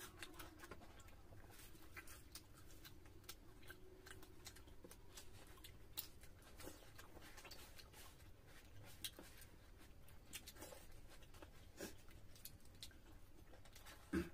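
Faint eating sounds: soft chewing and many small scattered clicks as luchi and chicken curry are eaten by hand, with a slightly louder click or two near the end.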